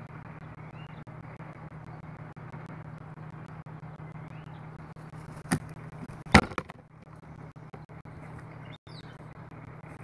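A Northwestern crow landing close by on the balcony planter: two sharp knocks about a second apart, the second much louder, with a few lighter taps after it, over a steady background traffic hum.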